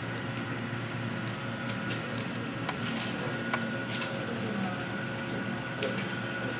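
Steady mechanical room hum from a wall-mounted air conditioner, with a few short sharp clicks about three, four and six seconds in.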